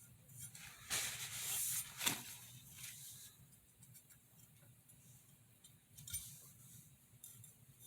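A kitchen utility knife's edge drawn across a sharpening stone: one light scraping stroke about a second in, then a sharp click and a few fainter touches of steel on stone.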